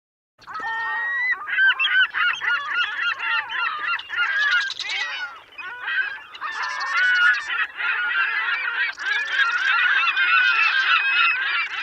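A flock of birds calling all at once, a dense, continuous chorus of many overlapping honking calls.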